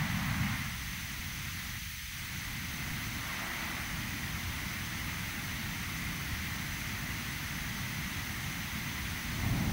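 Synthesized jet-engine sound from ZynAddSubFX: a steady noise drone with a low rumble and a thin steady high whistle, shaped by an EQ with a dip in the middle. The rumble eases about a second in and swells again near the end.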